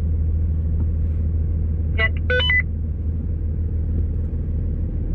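Turbo Cummins diesel of a Dodge Ram 3500 running, a steady low rumble heard from inside the cab. About two seconds in, a brief electronic beep sequence of a few stepped tones sounds.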